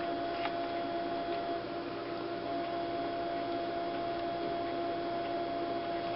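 Steady electrical hum, with a faint small click about half a second in.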